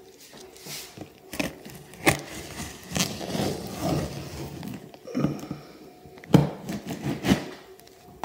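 A cardboard shipping box wrapped in plastic and packing tape being handled: irregular knocks and taps, with the plastic crinkling and scraping against the cardboard.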